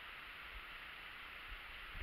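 Steady faint hiss from a head-mounted action camera's microphone, with a few soft low bumps.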